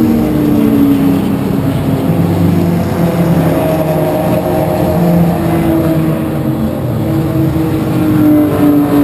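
Race car engines going past at a racetrack, several engine tones rising and falling slowly in pitch.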